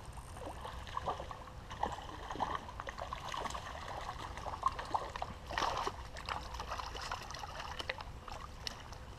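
Shallow creek water trickling, with irregular small splashes and sharp ticks as a hooked brown trout thrashes at the surface, one louder splash about five and a half seconds in.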